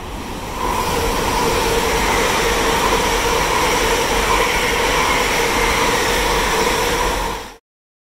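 LNER Azuma high-speed train passing fast along the platform: a loud, steady rush of wheels on rail and air, with a steady whine over it. It swells as the front arrives, about a second in, and cuts off abruptly near the end.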